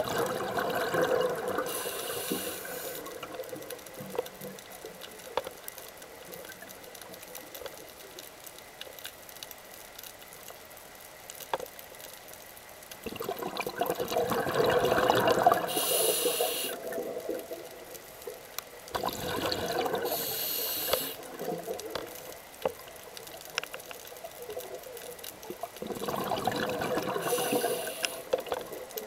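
Scuba diver breathing through a regulator, heard underwater: four breaths, each a gush of exhaled bubbles ending in a short hiss, with quiet stretches between them.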